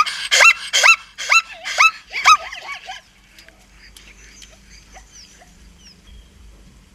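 Zebra calling: a quick run of about six high, yelping barks, each rising then falling in pitch, over the first two and a half seconds. Faint high chirps follow in the background.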